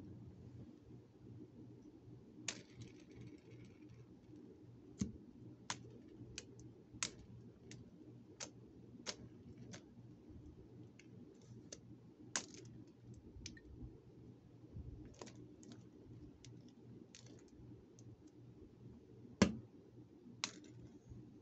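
Scattered sharp clicks and taps, coming irregularly and for a stretch about one every half second or so, with one louder click near the end, over a faint steady low hum.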